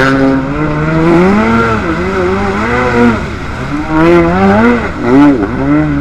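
Jet ski engine revving up and down as the throttle is worked, its pitch rising and falling over and over while the craft pushes through shallow floodwater and mud.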